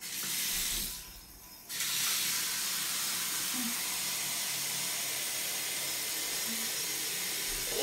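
Bathroom tap running, its stream splashing into the sink basin and over a rubbery bouncy ball being rinsed. The flow falters briefly about a second in, then runs steadily.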